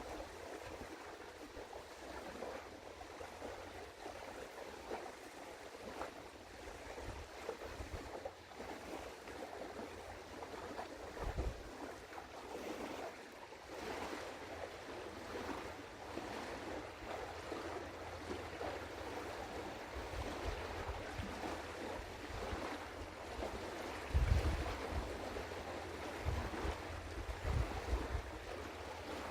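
Outdoor wind and water noise on the Elbe shore: an even wash of small waves, with gusts of wind buffeting the microphone, heavier in the last several seconds.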